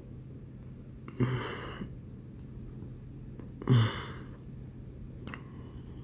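Two short, breathy vocal sounds from a person close to the microphone, about a second in and again some two and a half seconds later, over a steady low hum.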